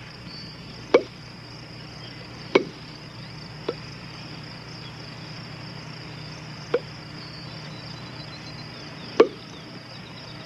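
Badminton rackets striking a shuttlecock in a rally: five sharp pocks at irregular gaps of one to three seconds, over a steady background hiss.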